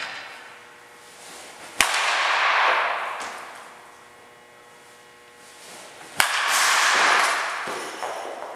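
A baseball bat cracking against a pitched ball twice, about four seconds apart, each crack followed by about a second of fading reverberation.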